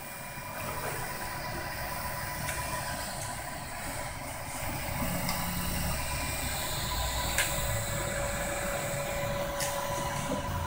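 Dual-extruder desktop 3D printer running a print: a steady motor whine with low tones that shift every second or so as the print head moves, and a few faint ticks.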